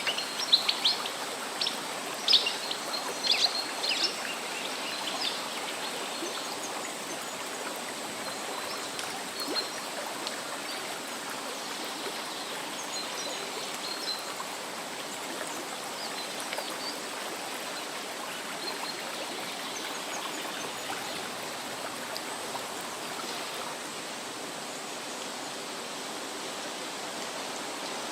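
Steady rush of falling water from a waterfall and its stream, with small birds chirping over it during the first few seconds.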